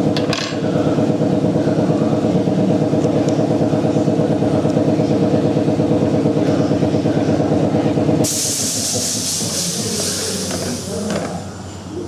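A piston air compressor runs with a steady pulsing hum, then stops about eight seconds in with a burst of hissing air venting, which fades away over the next few seconds.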